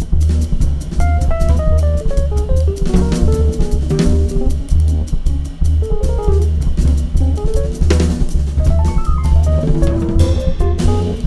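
Live electric jazz quartet playing: a busy drum kit with cymbals, snare and bass drum at the front, under a double bass line and a quick single-note melodic line.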